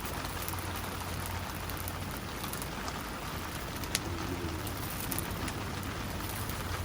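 Steady rain falling, with single drops ticking and one sharper tick about four seconds in.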